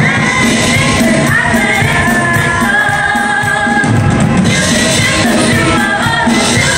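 Musical-theatre cast singing together in chorus, holding long notes.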